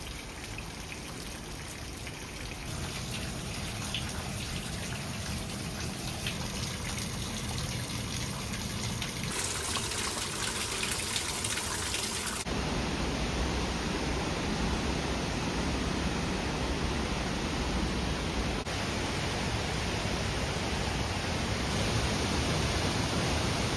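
Steady rushing noise of a waterfall's falling water, slowly getting louder. It turns brighter and hissier for a few seconds about nine seconds in, then deeper and fuller from about twelve seconds on.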